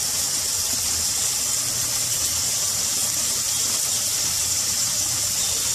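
Steady sizzling hiss of chicken gizzards frying in oil in an iron kadai on the stove, with a low hum underneath.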